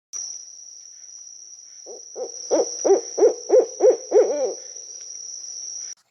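An owl gives a run of about eight hoots a couple of seconds in, getting louder through the series, each note sliding down slightly in pitch. Over it an insect keeps up a steady high-pitched trill that cuts off near the end.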